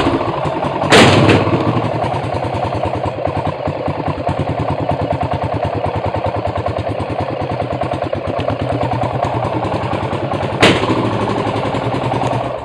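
BMW F 650 motorcycle engine idling with no exhaust fitted, a loud, rapid, even chugging straight from the open port. Two sharp cracks stand out, about a second in and near the end.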